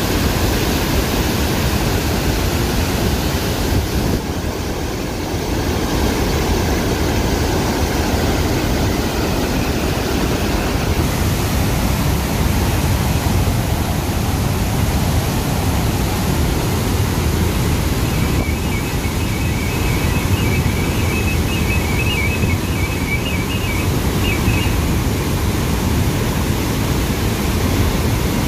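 Flood water rushing through the open spillway gates of the Musi Project dam and churning in the river below: a loud, steady, even rush of water.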